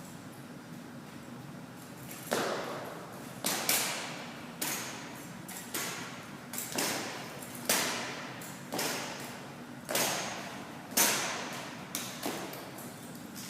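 Drill rifles being handled in an exhibition drill routine: about a dozen sharp slaps and knocks, unevenly spaced, each ringing briefly in the hall.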